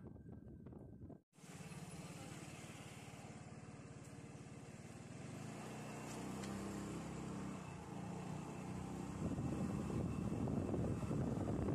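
A small motor vehicle's engine running as it drives along a road. Its pitch shifts with speed and it grows louder near the end. The sound drops out briefly about a second in.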